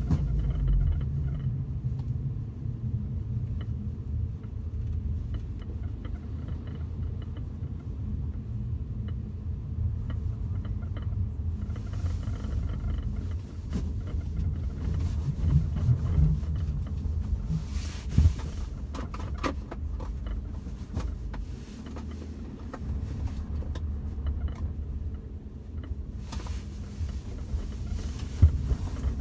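Cabin of a Mk7 Volkswagen Golf GTI on the move: a steady low road and engine rumble with scattered short clicks, the interior rattle being chased.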